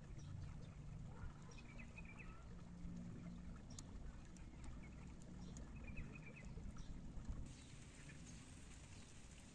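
Faint running water of a shallow stream, with a small bird chirping twice. About three-quarters of the way in, the water sound changes and turns brighter.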